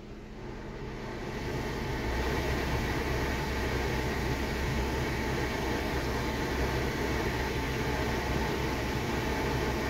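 Jeep Wrangler JL's A/C blower fan speeding up over the first couple of seconds to a high setting, then blowing steadily on max A/C.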